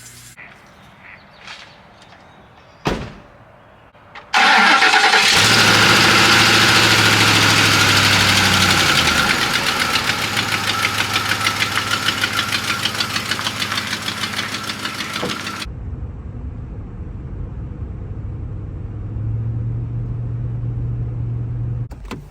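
Car engine starting about four seconds in and then idling steadily, with a loud rushing noise over it for about eleven seconds that cuts off suddenly.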